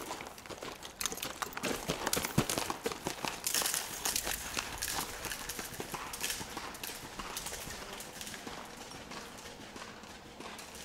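Hoofbeats of a ridden horse on soft arena footing, a run of dull knocks that are loudest as the horse passes close and grow fainter as it moves away.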